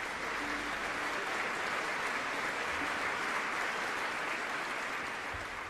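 Audience applause, a steady dense clapping that tapers off near the end.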